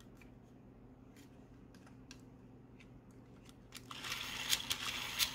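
A few faint plastic clicks as the toy helicopter is handled, then about four seconds in its battery-powered rotor starts up: a small toy motor whirring with a steady high whine and rattling clicks.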